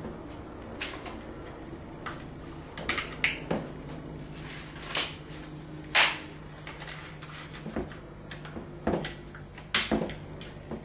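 Irregular sharp clicks and taps as dry lasagne sheets and vegetables are laid into a glass baking dish, over a faint steady low hum.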